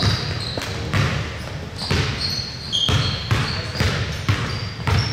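Basketball being dribbled on a gym court, bouncing with repeated thumps, while sneakers squeak in short high chirps on the floor.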